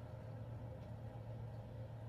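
Faint steady low hum: room tone.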